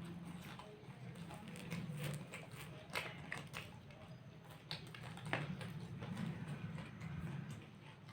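People eating fried snacks such as cutlets and samosas: chewing, with scattered crunches and sharp clicks, over a low steady hum.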